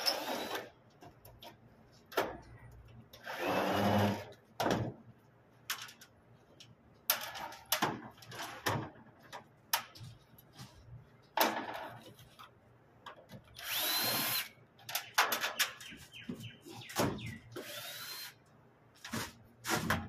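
A power drill runs in several short bursts, some with a rising whine, with clicks and knocks of metal parts being handled between them.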